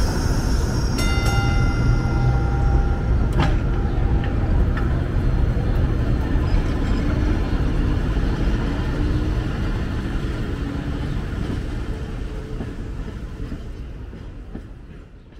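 Restored 1912 wooden streetcar, Edmonton car #33, rumbling along its rails as it pulls away. A brief ringing tone with overtones sounds about a second in, then a single sharp click. The rumble fades out toward the end.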